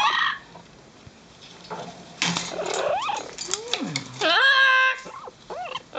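Amazon parrots calling in the nest box: a run of squawks and calls that glide up and down starting about two seconds in, with one long, loud call a little after four seconds.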